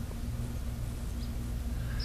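A steady low mechanical hum, such as a motor or pump running, with a faint high chirp or tick now and then.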